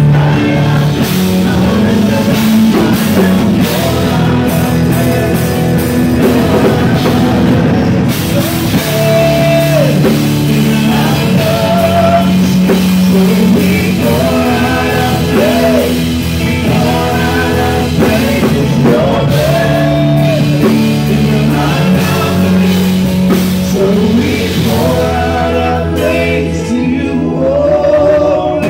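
A live gospel band playing steadily: Yamaha Motif XS8 keyboard, drum kit and guitar. A man sings over it in held notes that slide down at their ends.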